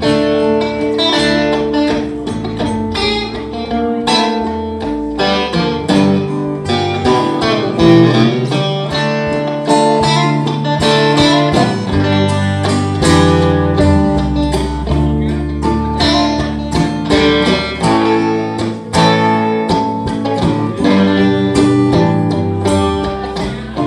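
Live band playing an instrumental guitar break with no vocals: quick plucked guitar lines over a moving bass line.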